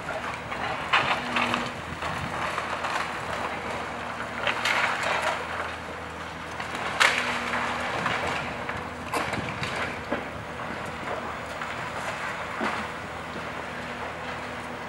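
Demolition excavator tearing down a brick and concrete building: its diesel engine runs steadily under irregular crunching, cracking and clattering of breaking masonry and falling debris, with the sharpest crashes about a second in, around five seconds and around seven seconds.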